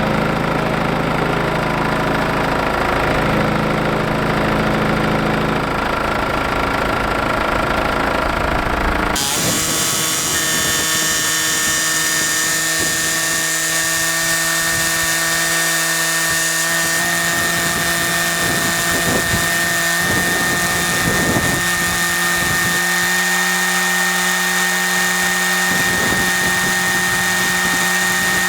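Diesel engine of a JCB Midi CX backhoe idling. About nine seconds in, the sound changes abruptly to a higher, steady engine note with a high whine, consistent with the too-low idle (about 950 RPM against a 1200 RPM spec, which made it shake and stall) being turned up.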